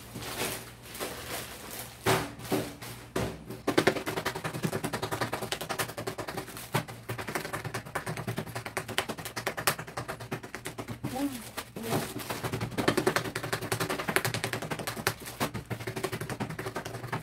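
Plastic bags of soybeans being pricked all over with a toothpick to make air holes for tempeh, giving rapid clicking and crackling of the plastic. The pricking is sparse at first and becomes very fast a few seconds in.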